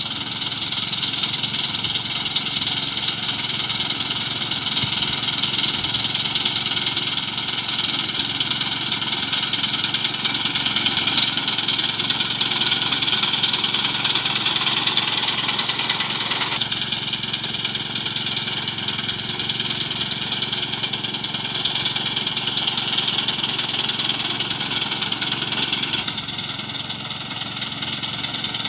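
Kamco KR 120 walk-behind power reaper's 5 hp engine running steadily as the machine cuts standing paddy rice. The sound changes abruptly a little past halfway and again near the end.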